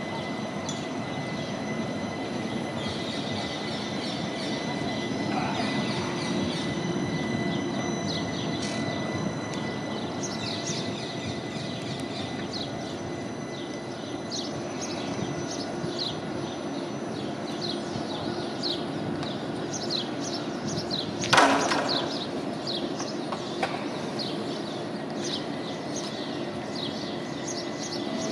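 CAF Urbos 3 tram standing at a stop with a steady electrical hum, over street ambience with birds chirping throughout. A single sharp clunk stands out about two-thirds of the way through.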